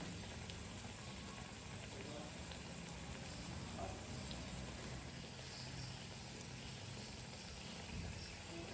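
Greens-and-onion pakoras deep-frying in hot oil: a steady sizzle with faint scattered crackles.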